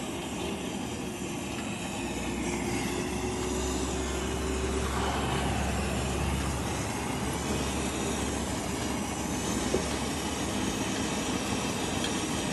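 Steady low rumble of a motor vehicle engine with general traffic noise, growing louder about two seconds in, and a single sharp knock late on.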